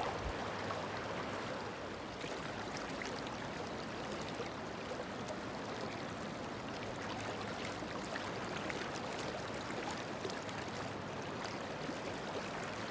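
Kenai River current rushing steadily past wading anglers, with small splashes and water ticks scattered through.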